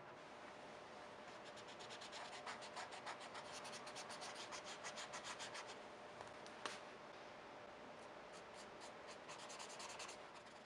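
Quiet scratching of a pen on paper in quick short strokes, at several strokes a second, densest in the first half. A single sharp click a little past the middle, then a sparser run of strokes near the end.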